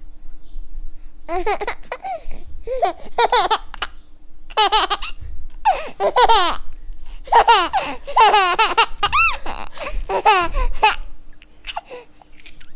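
Baby laughing in repeated high-pitched bursts of giggles with short pauses between, starting about a second in and tailing off near the end.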